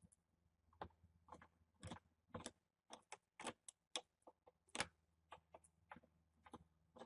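Faint, irregular clicks, about two a second, from a small electronics screwdriver turning out a plastic laptop bezel screw.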